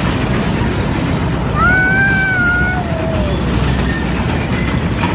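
Steady low rumble of a small park train ride running, with wind on the microphone. About a second and a half in, a high drawn-out call lasting about a second rises over it and dips at the end.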